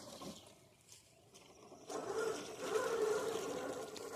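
Radio-controlled rock crawler's electric motor and gearbox whining as it drives at low speed, a steady buzz that starts about two seconds in.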